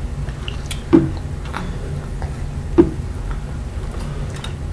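Close-up eating sounds of shrimp being peeled and eaten by hand: soft wet clicks and smacks, two louder ones about a second and nearly three seconds in, over a steady low hum.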